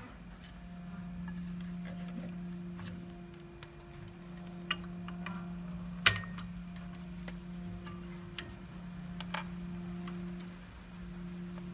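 Light clicks and taps of multimeter test probes against a circuit board and its component leads, scattered irregularly with one sharper click about six seconds in, over a steady low hum.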